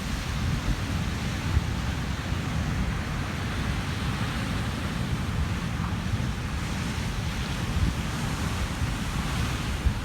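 Atlantic surf breaking and washing over a rocky shore at high tide, a steady roar of noise heaviest in the low rumble, with wind rumbling on the microphone.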